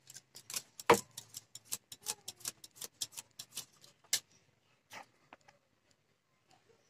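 Irregular sharp clicks and taps from hand work on a sewing-machine motor stator during rewinding, about three or four a second. The loudest comes about a second in, and they thin out after about five seconds.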